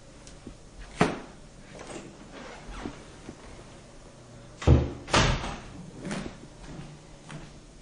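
A door being handled, giving a few sharp knocks and thuds: one about a second in, the loudest two close together in the middle, and a softer one a second later.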